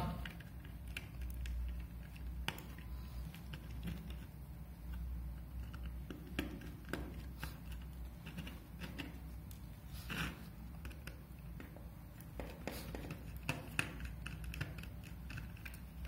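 Faint, scattered clicks and light scraping of a precision screwdriver turning the cover screws of a small hard drive, with the drive shifted by hand, over a steady low hum.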